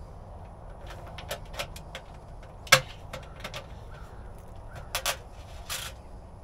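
Scattered sharp clicks and clinks of small hardware being handled and fitted against the stainless-steel drum of a poultry plucker, the loudest a single knock a little under three seconds in, with a few more around five to six seconds. A steady low rumble lies underneath.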